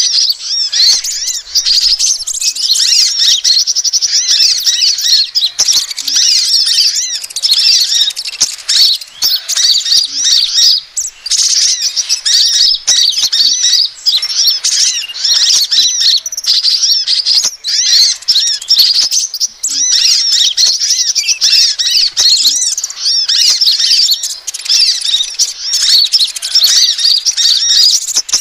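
Sunbird calls from a bird-trapping lure recording made for kolibri ninja and crimson sunbird (sepah raja): a dense, unbroken stream of rapid high-pitched chirps and twitters.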